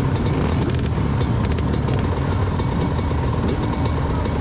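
A pack of small off-road motorcycle engines revving together as they pull away at a mass race start.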